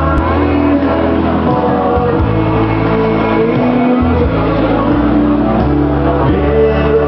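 Live dance band playing amplified through PA speakers: electric guitars over a steady bass line, with long held notes.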